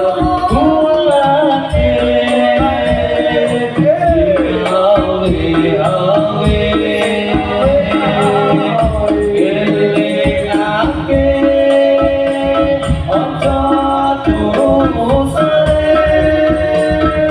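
Slow Javanese devotional song sung with long, wavering held notes over a steady beat of tambourine-like hand percussion with jingles.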